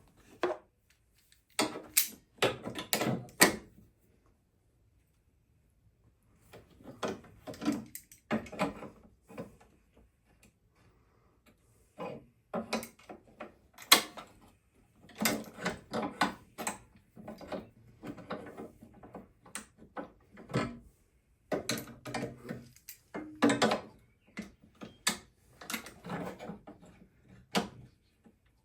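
Irregular knocks and clunks of tools and metal parts being handled during bodywork repair on a damaged car, in uneven clusters with a silent gap about four seconds in.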